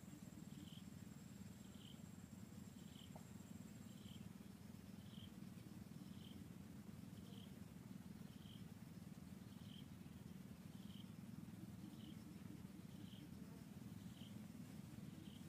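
Quiet forest ambience: a faint steady low rumble, with a short high chirp repeating about once a second.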